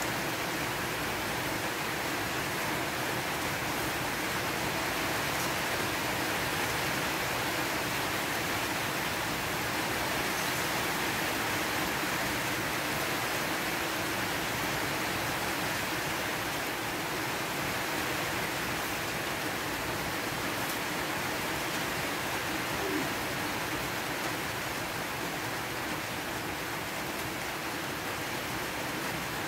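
A steady, even rushing noise that holds unchanged throughout, with a faint click or two.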